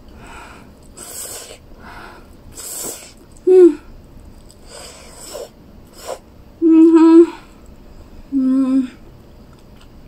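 A woman's hissing breaths in and out through the mouth against the heat of habanero shichimi, with three short closed-mouth hums: one about three and a half seconds in, a longer and louder one around seven seconds, and one near eight and a half seconds.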